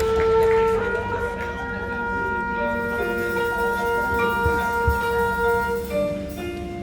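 Marching band wind and brass section holding soft, long sustained chords that change slowly, with a couple of low drum strokes about halfway through.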